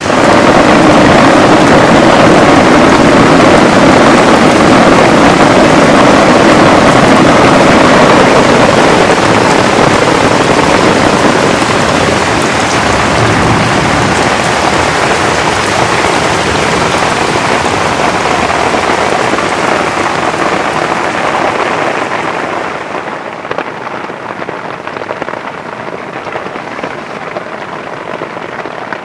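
Heavy rain falling on a backpacking tent's fabric, heard from inside the tent: a loud, dense, steady patter of drops that eases off over the last several seconds.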